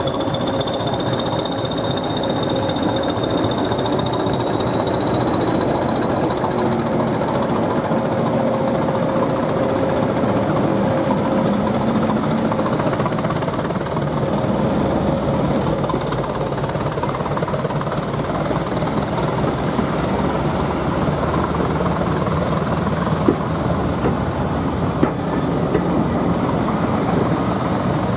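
British Rail Class 20 diesel locomotive pulling away at close range: its English Electric eight-cylinder diesel engine drums under power while the turbocharger's high whistle rises steadily in pitch. Coaches roll past after it, with a few sharp wheel clicks over rail joints near the end.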